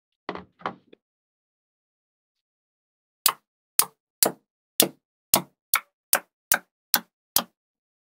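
Magnet balls clacking: two soft clacks near the start as a magnet-ball piece is settled into place, then, after a pause, a steady run of sharp clicks at about two a second as small cubes of magnet balls snap one by one onto a stack.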